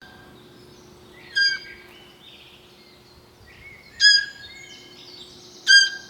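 Deer giving three short, high-pitched calls, each a second or two apart, over faint birdsong.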